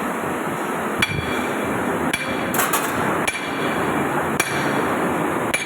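Hammer blows on metal, about six ringing strikes spaced roughly a second apart, over a steady background noise.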